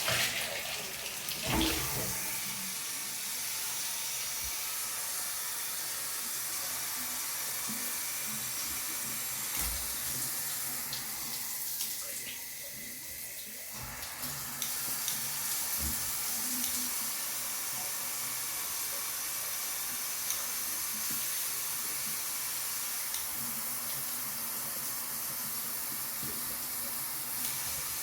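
Water spraying from a newly installed multi-setting shower head, a steady hiss. A couple of knocks come at the start, and the spray briefly drops and changes near the middle.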